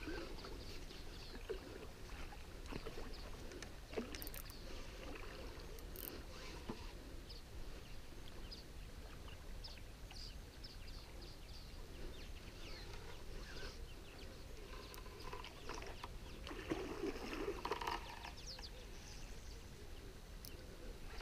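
Blue Marlin Big Shot barbel caller rod (roepstok) plunged and drawn through the water again and again, making irregular splashing, gulping water sounds meant to call sharptooth catfish. There is a louder splash about three-quarters of the way through.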